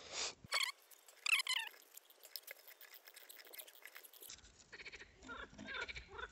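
Frogs croaking in pulsing, wavering calls, several times over, the loudest about a second in.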